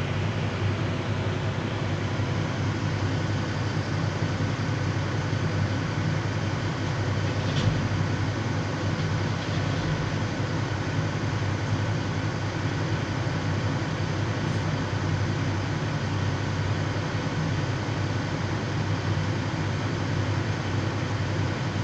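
Heavy diesel engines of a Volvo EC950E crawler excavator and a Cat 772G haul truck running steadily, a low even drone. A single sharp knock about seven and a half seconds in.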